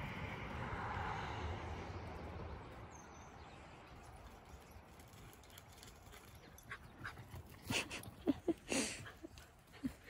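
A rushing noise fades away over the first two seconds. Near the end comes a quick cluster of short yips and scuffles from two herding dogs playing together, a sheltie puppy and a second dog.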